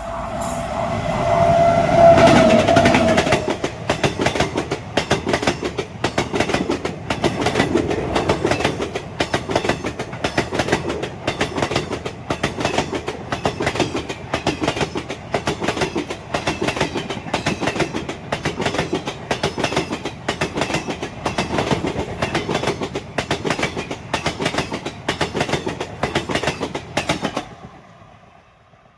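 A passing train sounds its horn in a short held tone at the start, then its wheels clatter over the rail joints in a long, even run of clicks. The clatter stops abruptly near the end.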